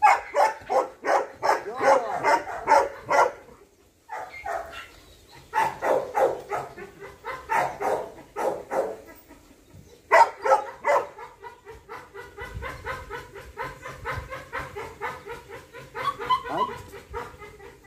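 A dog barking in runs of short barks, several a second, with two brief pauses; the last run is quicker and quieter.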